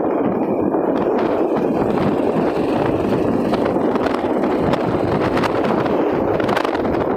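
Motorcycle engine running while being ridden, mixed with steady wind noise on the microphone.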